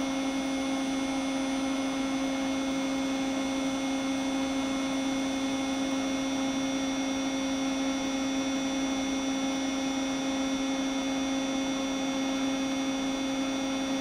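A steady electrical hum at one constant pitch with fainter higher overtones, not changing in level or pitch at all.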